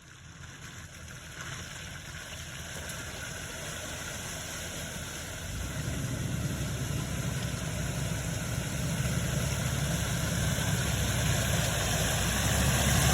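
Jeep TJ engine running, growing steadily louder all the way through, with a sharper rise about six seconds in.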